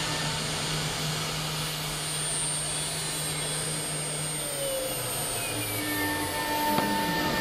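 AKM2030 4-axis CNC router running: a steady whirring noise with a low hum that steps down in pitch about halfway through, then gives way to a higher steady tone near the end as the machine's motion changes.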